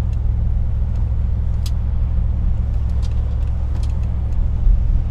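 Cabin noise of a Cadillac Eldorado driving through a bend: a steady low rumble of road and engine, with a few short sharp clicks from something loose rattling inside the interior trim panel.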